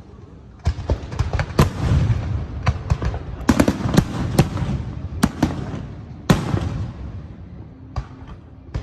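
Aerial fireworks shells bursting over a show: a quick, irregular string of sharp bangs with low rumbling between them, starting under a second in and thinning out near the end.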